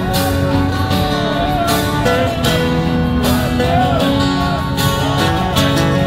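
Loud music: an instrumental pop intro with plucked-string sounds and a lead melody sliding up and down, over irregular sharp hits.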